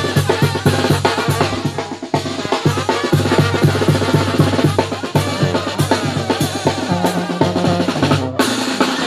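Live Mexican banda playing: a sousaphone bass line and trombones over a steady beat on the tambora bass drum and snare. The upper instruments break off for a moment about eight seconds in, then come back.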